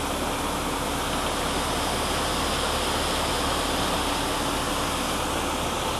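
Combine harvester running steadily while harvesting soybeans: a constant, even rushing noise over a low, unchanging engine drone.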